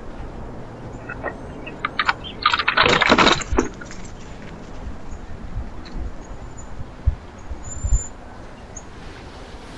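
Backyard bird feeder: a loud burst of wing flaps and rustling about two and a half seconds in, then a couple of dull low thumps and a faint high chirp near the end.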